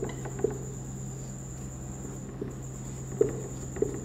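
Marker pen writing on a whiteboard: a few short soft taps and strokes over a steady low electrical hum and a faint high-pitched whine.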